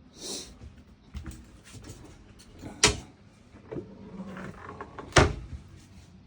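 Two sharp knocks about two seconds apart, among light clicks and handling noise, as fittings are handled in a caravan interior.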